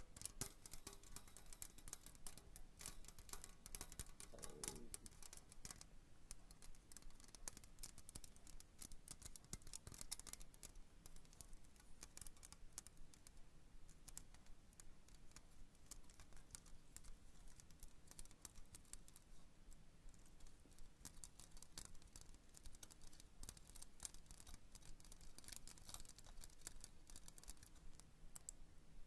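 Faint, close-up tapping and scratching of fingernails on objects: a dense run of small, quick clicks.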